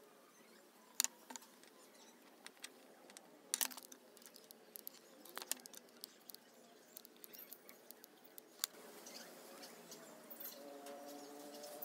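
Faint scattered clicks and ticks of hands handling the copper-wound field-coil stator of a Makita 4100NB cutter, with its wire leads and insulating tape. About nine seconds in, a faint steady noise with a few low tones sets in.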